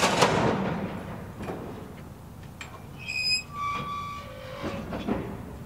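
Kicked refrigerator freight car slamming into standing cars and coupling with a loud bang. A second knock and a rattling rumble follow as the hard impact is taken up by the cars' draft gear. About three to four seconds in come several short, high metallic squeals.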